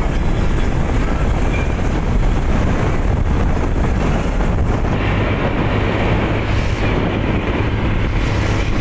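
Motorcycle on the move: its engine running steadily under a heavy rush of wind and road noise.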